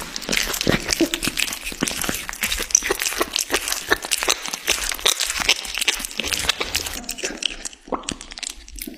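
Kittens chewing and tearing at raw chicken: dense, irregular crunching, biting and tearing, thinning out a little near the end.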